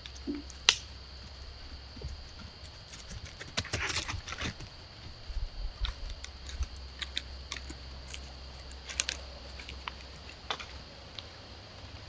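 White-tailed deer, a doe and a spotted fawn, walking through dry twigs and leaf litter: scattered irregular clicks and crackles, with a sharp snap under a second in as the loudest, a dense cluster about a third of the way through and another about three-quarters through. A faint steady high hum runs underneath.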